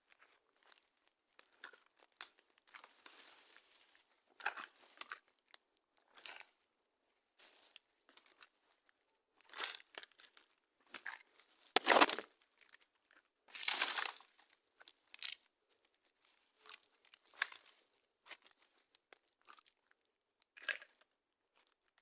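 Footsteps crunching on dry forest leaf litter, in irregular crackly bursts with the loudest steps about halfway through.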